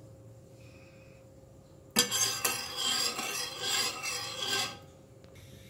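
Metal spoon stirring and scraping against the inside of a stainless steel saucepan of black jaggery syrup, mixing in a little lemon juice. The rasping scrape starts suddenly about two seconds in and goes on for nearly three seconds.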